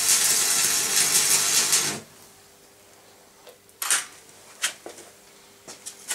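Electric arc welding, a dense crackling sizzle that cuts off suddenly about two seconds in as the arc stops. It is followed by a few sharp clicks.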